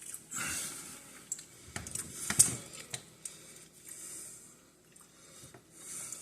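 Scattered light clicks and taps of forks and tins being handled on a table, with soft squishy handling noises; the loudest tap comes about two and a half seconds in.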